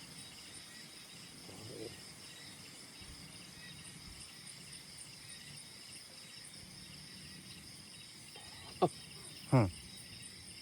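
Steady chorus of crickets and other insects: a high, evenly pulsing trill over a steady high buzz. Near the end, two short, loud sounds fall in pitch.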